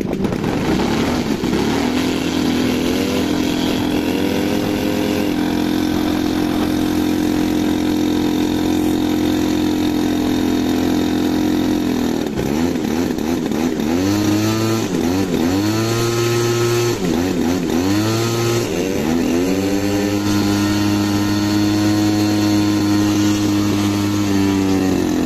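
RC aerobatic model plane's engine and propeller running on the ground: it idles steadily, is revved up and down several times about halfway through, then holds a slightly higher steady speed before dropping back near the end.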